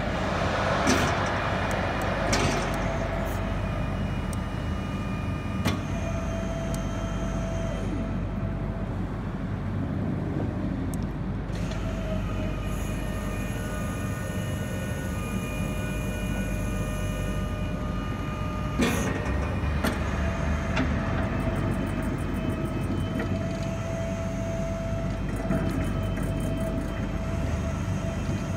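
Raymond swing-reach truck travelling along an aisle: its electric drive gives a steady rumble with a high whine running through it. A few sharp clicks and knocks come over it, one near the start and one about two-thirds of the way through.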